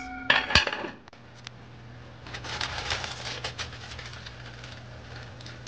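A metal lid set down on a pot of rice with one clank about half a second in. Then a steady low hum, with a spell of light rattling and clatter partway through.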